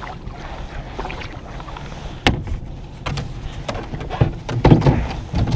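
Knocks and clunks of gear being handled against a kayak, a sharp click a little over two seconds in and then a run of thumps, over a low steady rumble.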